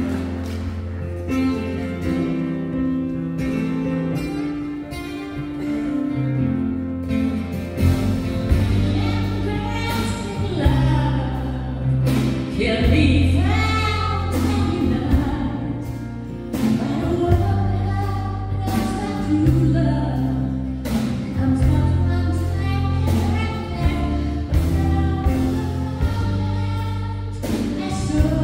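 A woman sings lead into a microphone with a live band: electric bass, acoustic guitar and drums. A bass line steps between held low notes under the gliding vocal, and drum strikes punctuate throughout.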